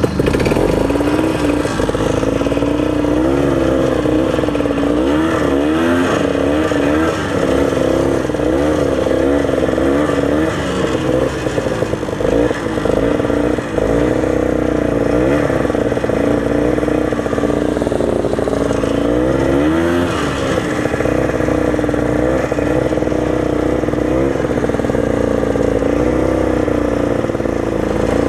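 Old Ski-Doo snowmobile's two-stroke engine running, its pitch rising and falling every second or two as the throttle is worked.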